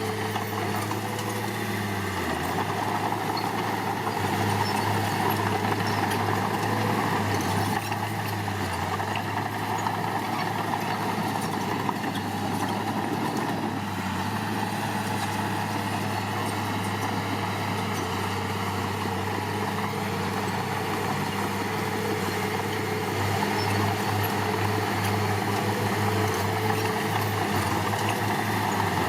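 Diesel engine of heavy earthmoving machinery running steadily with a low hum, getting a little louder a few seconds in and again near the end.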